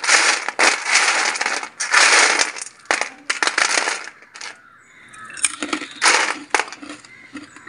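Jaggery-and-sesame-coated fox nuts (makhana), their coating set hard, rattling and scraping against a stainless steel plate as a hand rakes through and scoops them, in a series of rustling strokes that grow fewer and quieter after about four seconds.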